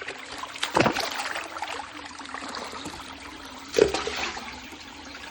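Running water pouring and splashing steadily, with two louder splashes about a second in and just under four seconds in.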